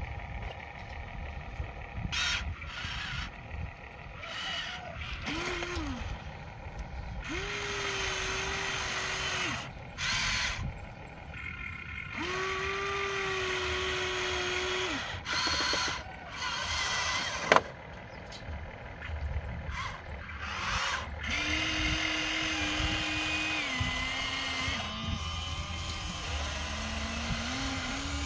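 Electric motors of a radio-controlled toy excavator whining in runs of one to three seconds as it crawls and digs, each run a steady tone that cuts off abruptly. A sharp click sounds a little past the middle.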